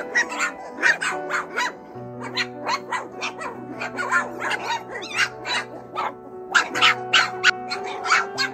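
Four-week-old mini goldendoodle puppies yipping and barking over and over in short, irregular calls, over background music of held chords.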